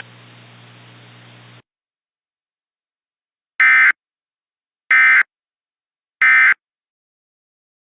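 Emergency Alert System end-of-message signal: three short, loud bursts of digital data tones, evenly spaced about a second and a quarter apart. Before them, a faint steady hum cuts off a little over a second in.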